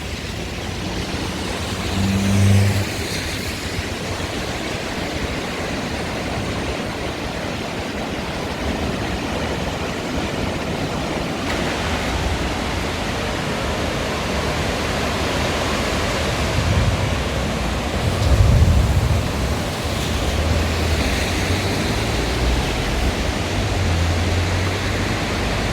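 Steady rushing outdoor noise of wind and sea, with several low rumbles swelling and fading, the strongest about 18 seconds in.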